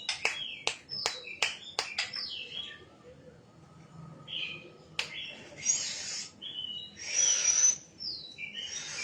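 Shama singing: a quick run of sharp clicking chirps, then whistled notes broken by several harsh, scratchy calls.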